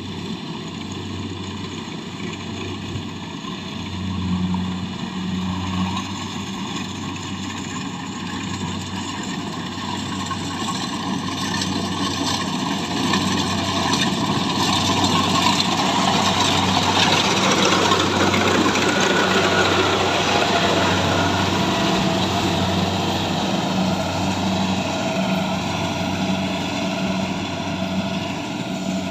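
Engine of a rice harvesting machine running, with mechanical noise that builds to get louder around the middle and eases off a little toward the end.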